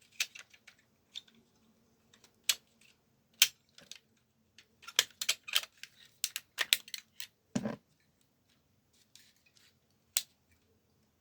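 Irregular sharp plastic clicks and snaps from a vintage Diaclone toy robot as its parts are moved and pushed into place, coming thickest a few seconds in. A duller knock sounds about seven and a half seconds in.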